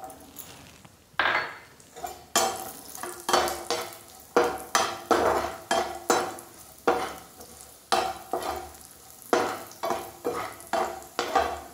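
A perforated metal skimmer scraping and stirring cashews roasting in ghee in a frying pan, in repeated strokes about two a second that start about a second in.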